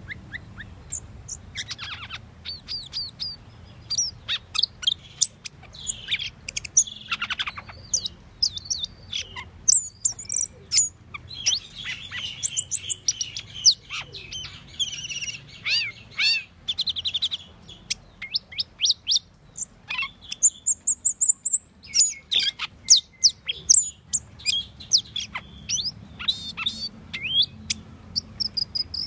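Asian glossy starling singing: a rapid, varied string of short high whistles, chirps, rising and falling glides and buzzy chattering notes, kept up without a break.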